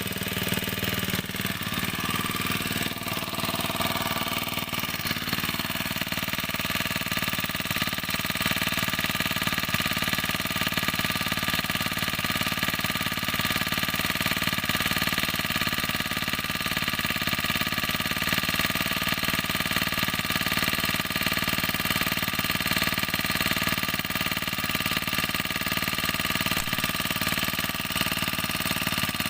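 Small grass-cutter engine running steadily at an even speed, its pitch shifting briefly a few seconds in.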